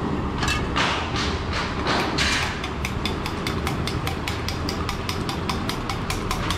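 A spoon clinking against a steel bowl as eggs are beaten by hand. It starts with slower, heavier strokes and settles into fast, regular clinks at about five a second, over a steady low background hum.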